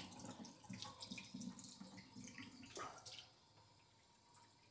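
Kitchen faucet running a thin stream of cold water over a new carbon filter cartridge and into a stainless steel sink, flushing the filter; faint, with small splashes, dying away about three and a half seconds in.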